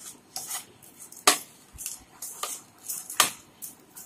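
A white spoon stirring a dry mix of crunchy fried jhuri bhaja and chopped vegetables in a white bowl. The snack rustles crisply, with three sharp clinks of spoon on bowl; the loudest comes about a second in.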